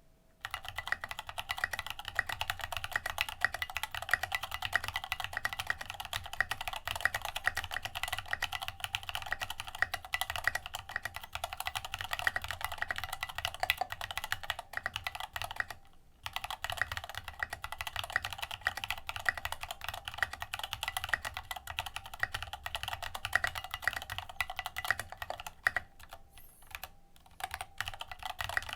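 Fast, continuous typing on a NYM96 mechanical keyboard with 205g0-lubed Gateron Yellow linear switches and SA-profile keycaps: a dense stream of keystroke clacks, with a brief pause about halfway through and sparser strokes near the end.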